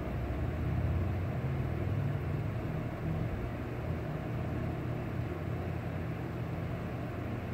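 Steady low rumble of background noise, with no distinct events.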